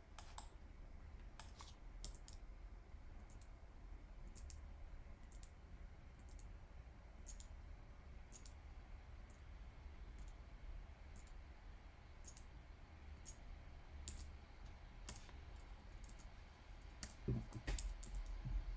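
Scattered faint clicks of a computer mouse and keyboard at irregular intervals over a low steady hum, with a couple of soft low knocks near the end.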